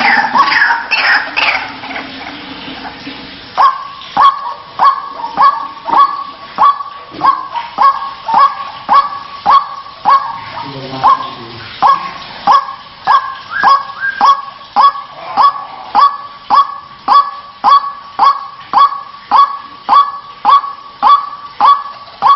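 White-breasted waterhen (ruak-ruak) calling, played as a lure: a burst of loud overlapping calls at first, then a quieter moment, then a steady, evenly repeated 'kruak' note about three times every two seconds.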